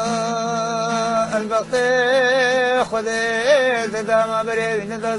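Background music: a male voice sings a slow, ornamented melody with wavering pitch over a steady low drone.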